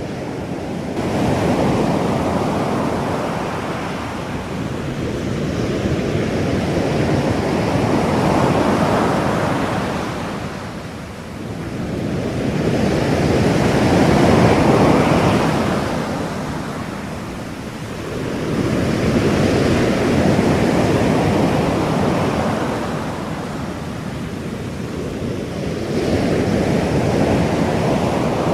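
Ocean surf: waves swell and wash in and ebb again about every six seconds, five times over, with no other sound on top. It is the cover sound of a subliminal affirmation track, with the affirmations meant to lie inaudibly beneath it.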